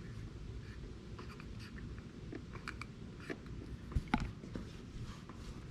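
Faint handling noises: small clicks and light scratches over a low steady hum, with a sharper pair of clicks about four seconds in.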